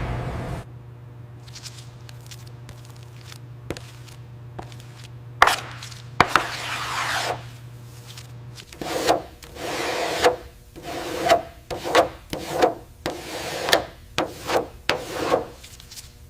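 Repeated scraping or rubbing strokes, about one or two a second through the second half. A steady low hum runs underneath in the first half, and two sharp knocks come just before the middle.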